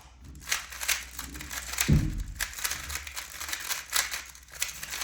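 3x3 Rubik's Cube being turned at speed during a timed solve of about five seconds: a fast, continuous stream of plastic clicking and clacking from the layers. There is a single thud about two seconds in.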